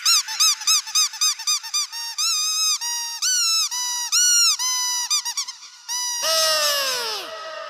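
High-pitched squeaking: a fast run of short chirps, then longer arched squeaks, then a string of falling whistle-like sweeps about six seconds in.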